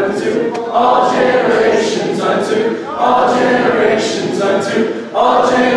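A crowd of teenagers singing together, unaccompanied, in phrases with a short break about every two seconds.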